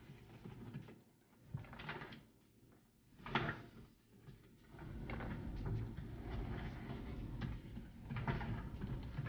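Desk-work sounds: computer keyboard keys clicking and papers being handled, with a few louder short knocks in the first half. A low steady hum comes in about five seconds in.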